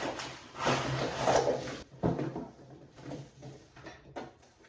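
Grinder parts and packaging being handled while unboxing: a longer rustle in the first half, then several short knocks and scrapes.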